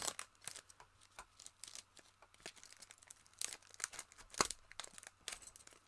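Stiff clear plastic lure packaging crinkling and crackling as it is pried and torn open by hand, in irregular sharp crackles with a few louder snaps around the middle.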